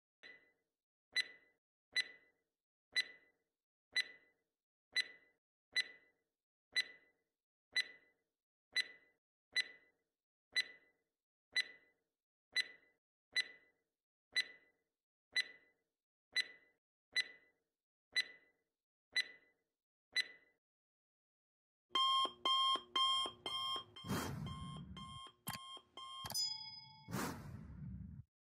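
Countdown timer sound effect: a clock ticking about once a second for some twenty seconds, then, after a short pause, an alarm clock ringing loudly for several seconds to signal that time is up.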